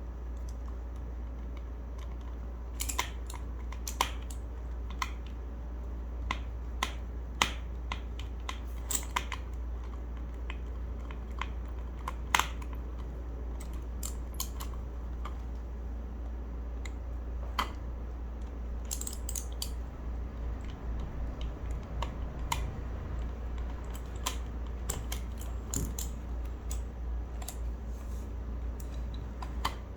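Scattered sharp clicks and light knocks from a Gamakay K61 mechanical keyboard being handled, at irregular intervals with a denser patter of small ticks past the middle, over a steady low hum.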